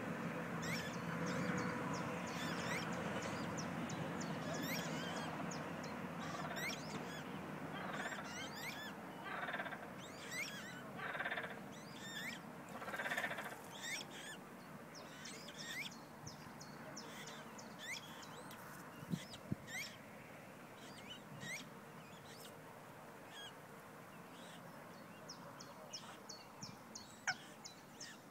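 Waterbirds calling on a pond, with a run of short honking calls about a third of the way in. Small songbirds chirp high and short throughout, over a steady background hiss that slowly fades.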